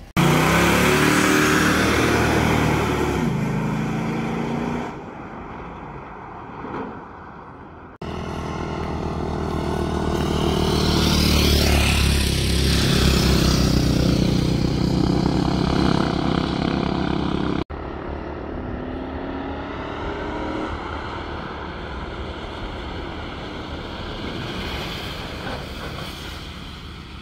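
A V8 Nissan Pathfinder engine accelerating with rising revs, in separate takes that cut off abruptly twice. In the loudest middle stretch a dirt bike engine rides past.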